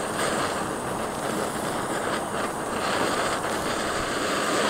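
BRS backpacking canister stove burning steadily under a percolator, a constant gas hiss.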